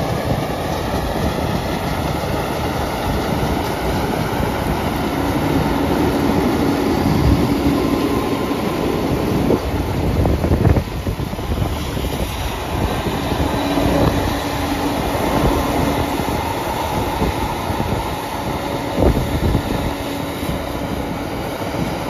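Semi truck driving: a loud, steady rumble with rattling and clatter from the truck in motion.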